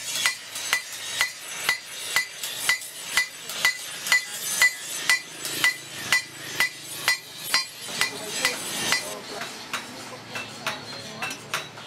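Blacksmith's hand hammer striking steel on an anvil at a steady pace of about two blows a second, each with a short metallic ring. A little after nine seconds in, the blows turn quicker and lighter.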